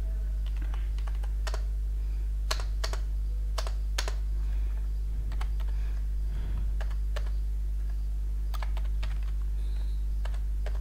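Computer keyboard keystrokes, a few irregular taps spread out with pauses between them, over a steady low electrical hum.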